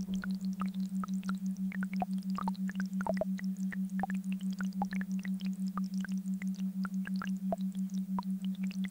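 Low hum tone of a binaural or monaural beat track, pulsing evenly about six times a second. Many short, scattered high blips and chirps sound over it.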